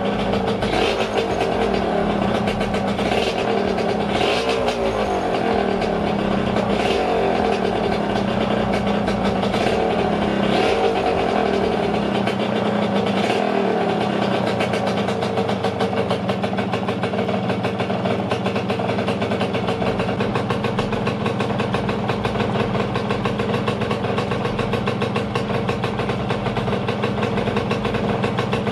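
Yamaha RXT 135's freshly rebuilt single-cylinder two-stroke engine running on break-in. It is blipped up and down several times in the first ten seconds or so, then settles to a steady idle. The engine itself is quiet; the noise is from the exhaust, which has a hole in it.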